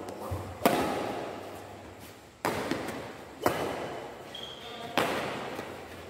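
Badminton rackets striking a shuttlecock during a rally: four sharp hits about one to two seconds apart, each echoing through a large hall.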